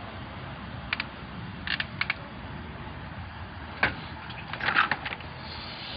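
Steady low background rumble with a few short clicks and rustles, typical of a phone being handled and moved while it records.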